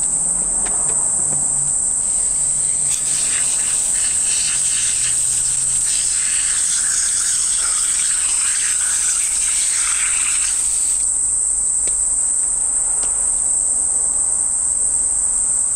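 A steady, high-pitched insect chorus that never lets up. A softer hiss joins it from about three seconds in until about eleven seconds in.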